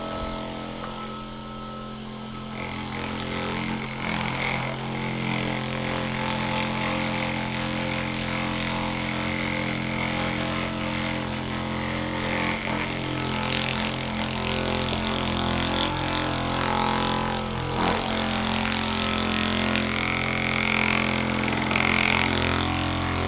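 A small electric motor hums steadily at one unchanging pitch, with some softer rubbing or shuffling noise over it.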